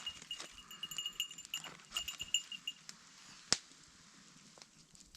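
Small metal tags on a dog's collar jingling in short, repeated rings over the first few seconds, with a single sharp click about three and a half seconds in.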